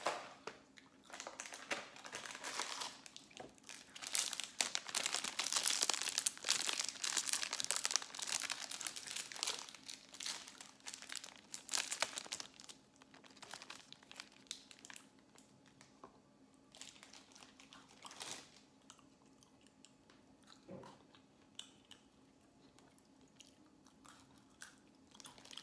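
Crinkling and rustling of a Pocky biscuit-stick pack's foil inner bag as it is pulled out and torn open, dense for the first dozen seconds. After that come sparser crinkles and quieter crunching as the sticks are eaten.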